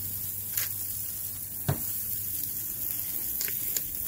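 Beef burger patties sizzling steadily on the grates of a gas grill, with a few sharp light knocks.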